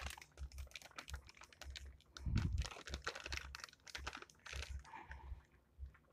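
Clear plastic bag crinkling and rustling as a pork chop is worked around in seasoned flour inside it, with irregular light clicks and a soft thump about two and a half seconds in.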